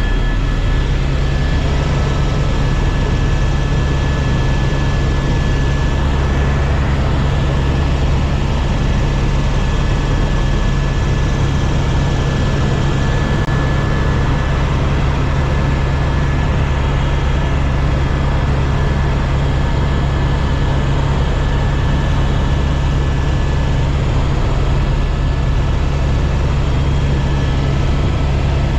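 Helicopter in flight: loud, steady rotor and engine noise, with a thin high whine held over it.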